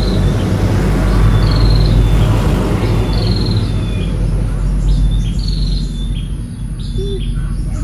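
A bird chirping: a short high trilled call repeated about every second and a half, over a steady low rumble.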